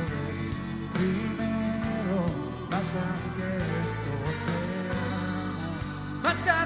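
Live band music: drum kit with cymbals, bass and guitar, with a male lead singer; his voice comes in strongly near the end.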